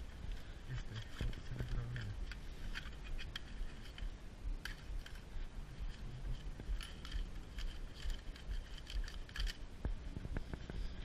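Small photographic slide mounts clicking and clattering against each other as gloved hands rummage through a box full of them, in many quick, irregular ticks.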